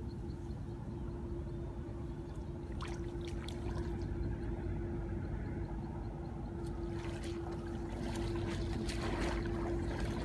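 Rustling of grass and reeds with light splashing of shallow water as a person wades and works with a bamboo basket trap, the crackles coming around three seconds in and again more densely from about seven seconds on. Under it a steady motor-like hum at one pitch and a low rumble run throughout.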